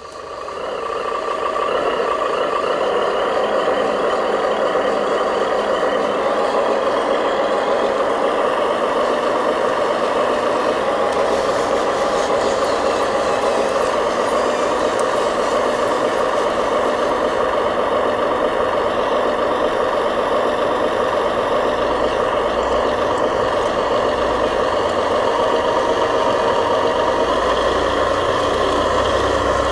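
Remote-control dump truck running, a steady truck-like engine drone that fades in over the first second and holds evenly.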